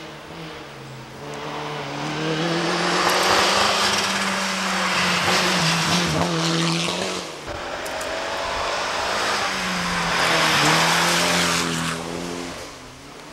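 Rally car running at high revs through a corner on a loose gravel road, with the hiss of tyres on gravel. It swells twice, with the engine pitch dipping briefly as revs drop and climbs again.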